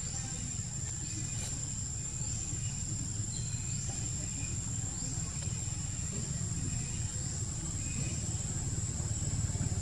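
Steady high-pitched insect drone, with short rising chirps about once a second, over a constant low rumble.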